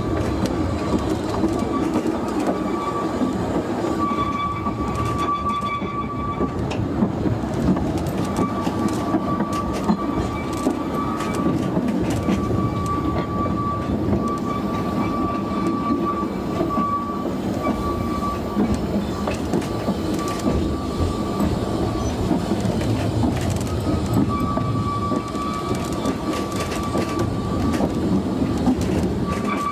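2 ft gauge narrow-gauge train running, heard from aboard: a steady rumble of the wheels on the rails with scattered clicks over the rail joints. A high wheel squeal comes and goes in stretches of several seconds as the train rounds the curves.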